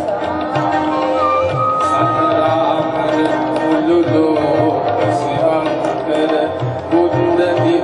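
A song with a steady hand-drum beat under the melody, sung by a male singer into a microphone through a PA system.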